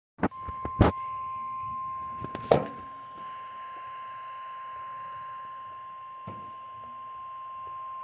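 NOAA Weather Radio warning alarm tone, a single steady 1050 Hz tone, from a Midland weather alert radio's speaker, signalling that a warning is about to be broadcast. A few knocks from handling sound near the start, the loudest about a second and two and a half seconds in.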